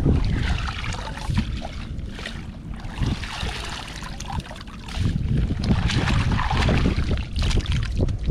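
Water splashing and sloshing, mixed with wind buffeting the microphone in an uneven low rumble.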